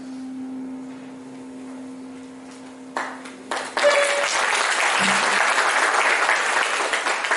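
A film's closing music ends on a held note, then an audience starts to applaud about halfway through: a few first claps, then steady clapping from the whole hall.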